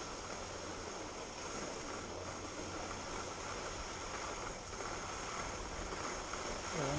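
Steady rushing wind on the microphone of a moving skier's body-worn camera, mixed with skis sliding over groomed snow.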